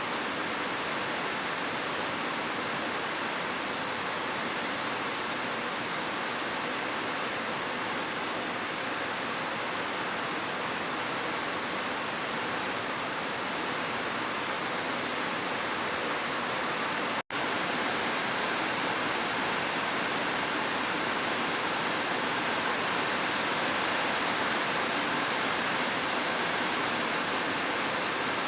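Heavy rain falling in a steady, even hiss, cut by a split-second dropout to silence about two-thirds of the way through.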